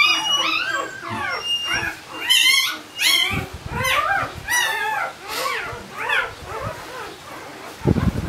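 Newborn Barbado da Terceira puppy, four days old, crying in repeated high squeals that rise and fall while it is handled for early neurological stimulation. The cries fade out, and there is a dull thump near the end.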